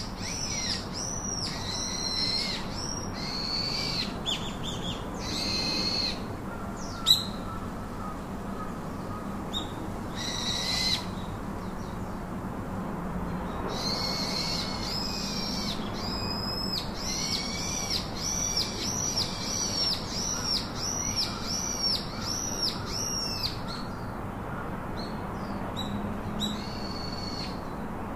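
A bird calling over and over: bouts of high, arched call notes about two a second, with pauses between the bouts, over a steady low background hum. There is one sharp click about seven seconds in.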